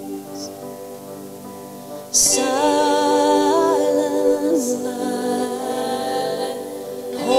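Slow music with held chords. About two seconds in it gets suddenly louder as a gliding, singing melody line enters over the chords.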